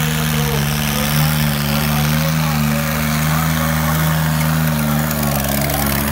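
Tractor diesel engine running at steady high revs under load while dragging a disc harrow through loose dirt.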